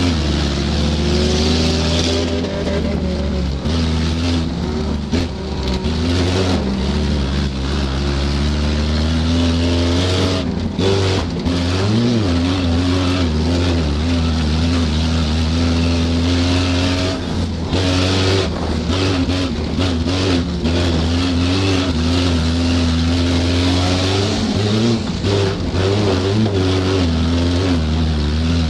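Stock car engine running hard in a race, heard from inside the cockpit: its pitch rises and falls over and over with the throttle, with a few short dips.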